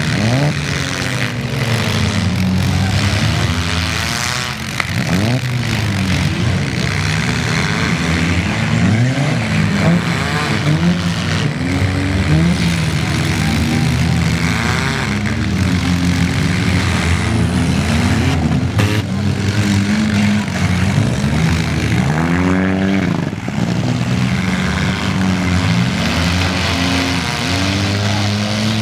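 Several four-cylinder demolition derby cars revving hard at once, their engine notes rising and falling over one another, with a few sharp crashes of cars ramming each other.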